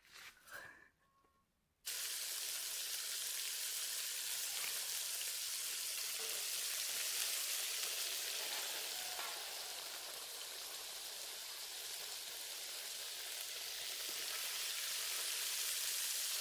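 Chilli-coated catfish pieces deep-frying in hot oil in a large metal wok: a steady sizzling hiss that starts suddenly about two seconds in.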